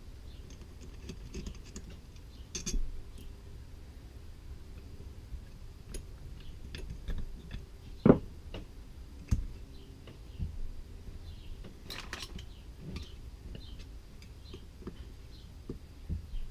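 Tools and small metal parts of an Edelbrock carburetor clicking and clinking as it is taken apart by hand, with scattered light knocks, the sharpest about eight seconds in, over a faint low hum.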